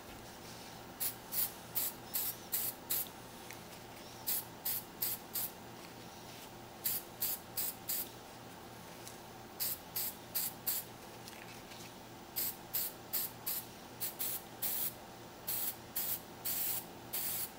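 Aerosol spray paint can hissing in short, quick bursts, four to six puffs at a time with short pauses between groups.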